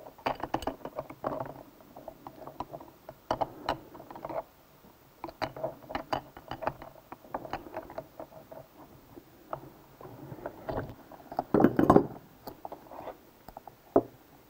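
Metal wrench and holding tool working the 65 ft-lb nut off the driven-unit shaft of a riding-mower CVT transmission: irregular metal clicks and clinks, with a louder clattering burst near the end and one sharp click just after.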